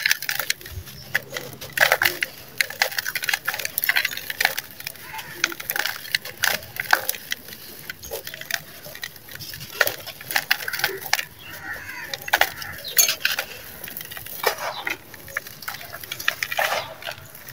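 Dry, gritty sand-cement block being crushed and crumbled by hand, giving irregular crunches and crackles as grains and small stones fall into a plastic bowl.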